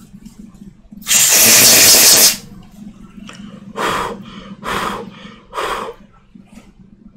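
Freeze spray hissing from an aerosol can onto a circuit board in one loud burst of about a second, the cold spray used to show which part heats up under injected voltage. Three shorter, softer puffs follow a little later.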